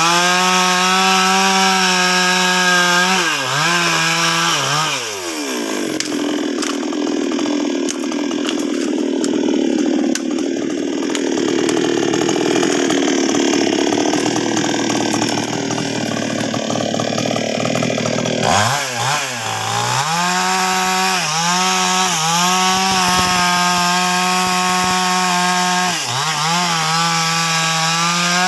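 NWESST 628 two-stroke chainsaw running at high revs with brief throttle dips. From about five seconds in it bogs down under load as the chain cuts through a sengon log for around thirteen seconds. It then revs freely again, with several quick throttle blips.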